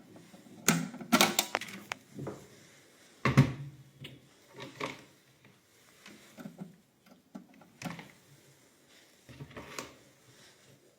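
Scattered clicks and knocks of hands handling wires and test leads at an electrical distribution box, a cluster of clicks early on, the loudest knock a little past three seconds in, then a few sparser taps.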